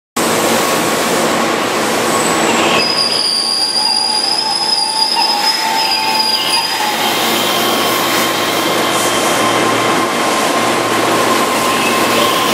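Keihan 13000-series electric commuter train rolling into a station platform. It runs steadily, with a high-pitched squeal from about three seconds in that lasts some four seconds, then a lower steady whine as the cars pass close by.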